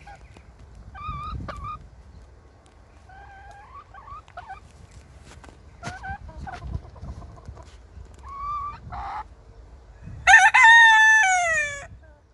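Wyandotte rooster crowing once, loud and long, near the end, the call falling in pitch as it closes. Before it come a few short, quiet clucks and calls from the chickens.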